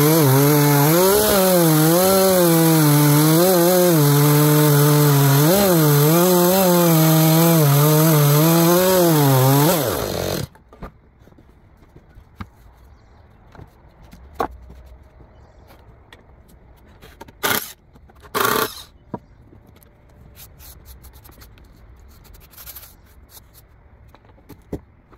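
Gas chainsaw ripping lengthwise through an apple log under load, its engine pitch wavering as it cuts, then shut off about ten seconds in, winding down to a stop. After that come scattered knocks and bumps of wood being handled, two louder ones a little past the middle.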